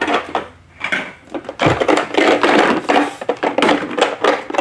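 Hard plastic parts of a ride-on toy knocking and clattering against each other as a plastic seat piece is fitted onto the body: a run of rapid knocks and rattles, with a dull thump a little before the middle.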